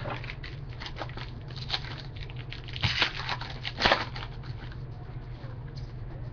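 Football trading cards and their packaging being handled: a run of small crackles and clicks, with the loudest snaps about three to four seconds in.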